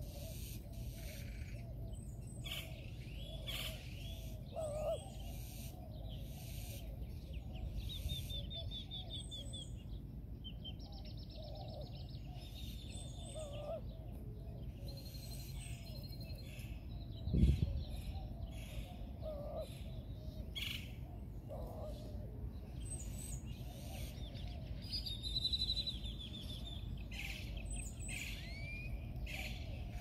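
Great-tailed grackles and other park birds calling: scattered chirps, whistles and quick rattling trills over a steady low rumble. One dull thump a little past halfway is the loudest sound.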